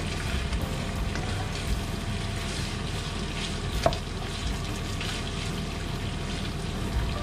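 Diced meat sizzling as it fries in a non-stick frying pan, stirred and scraped with a plastic spatula, with one sharper clack about four seconds in.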